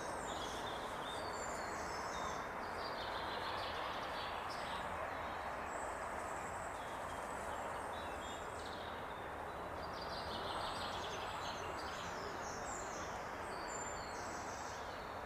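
Several songbirds singing in woodland at dawn, many short phrases overlapping throughout, over a steady background hiss.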